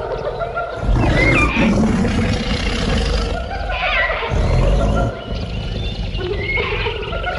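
Big cat roaring twice, deep and loud: once about a second in and again about four seconds in, each roar lasting about a second.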